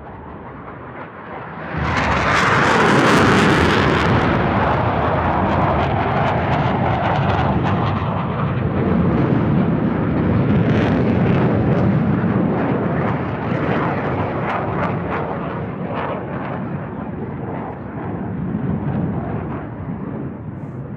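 Fighter jet flying past: the jet noise swells sharply about two seconds in with a brief high hiss, stays loud with a crackling rumble, then slowly fades.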